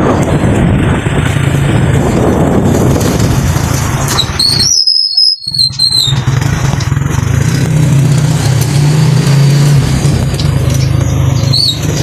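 Small motor vehicle's engine running steadily with road and wind noise, heard while riding aboard; the sound cuts out briefly about five seconds in, and a few short high squeaks come around that break and near the end.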